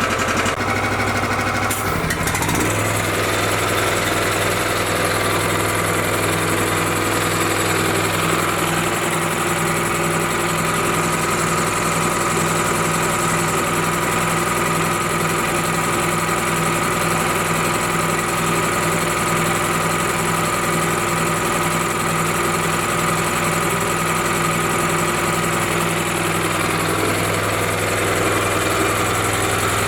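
Honda GX390 single-cylinder gasoline engine on a gas-powered air compressor idling steadily while it warms up, held at idle so the compressor pump is not loading. Its note shifts slightly about two seconds in, then holds steady.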